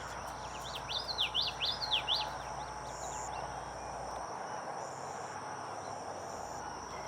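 Outdoor ambience: a steady high-pitched insect drone with a bird's quick run of rising-and-falling chirps in the first two seconds, over a steady hiss.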